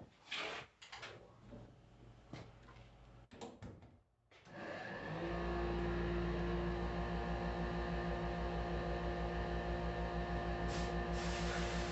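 A few light clicks of small metal parts being handled, then an electric workshop tool motor starts about four seconds in and runs steadily with a fast, even flutter, as the starter motor's parts are cleaned.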